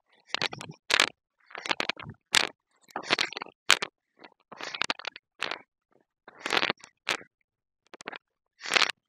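Footsteps crunching through dry grass as a person climbs a slope. There are about a dozen short, dry crunches, roughly one every three-quarters of a second, with quiet gaps between them.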